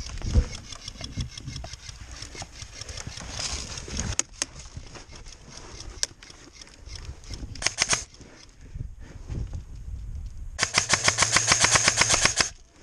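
Airsoft rifle firing on full auto: rapid, evenly spaced shots in bursts, a short burst partway through and a longer one of about two seconds near the end.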